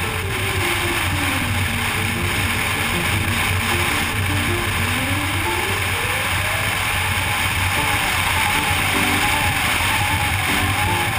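Riding noise from a BMW R1200GS motorcycle at speed: a steady rush of wind over the low drone of its boxer-twin engine, with a pitch fall about a second in and a rise around five to six seconds. Music with a melody plays over it throughout.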